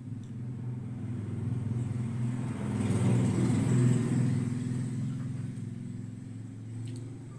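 A motor vehicle passing by: a low engine hum that swells to its loudest about three to four seconds in, then fades away.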